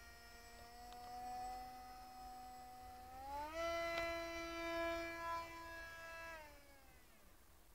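Brushless electric motor (Emax 28-05, 2850kv) of a scratch-built RC Funjet whining as it turns its small propeller. The whine steps up in pitch about three seconds in, holds, then drops back and dies away about seven seconds in.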